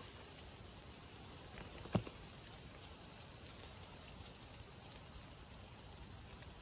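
Light rain falling steadily, faint, with one sharp click about two seconds in.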